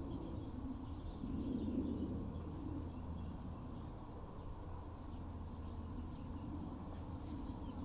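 Outdoor background: a steady low rumble, a little louder about one to two seconds in, with faint high chirps.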